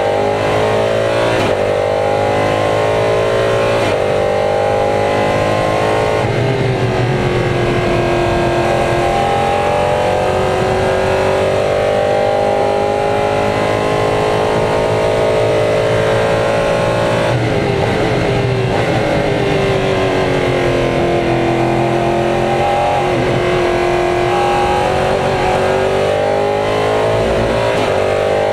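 LMP3 prototype's Nissan 5.0-litre V8 at racing speed, heard from inside the cockpit. The engine note climbs under acceleration and breaks off abruptly at the gear changes, about a second and a half in and again after about seventeen seconds. It falls in long sweeps under braking, around six seconds in and again after the second shift.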